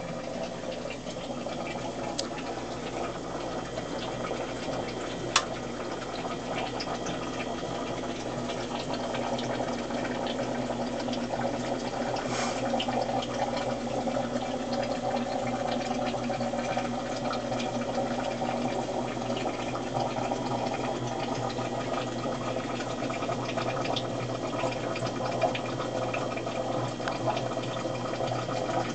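Aquarium sponge filter bubbling steadily, air rising through the water, with a sharp click about five seconds in.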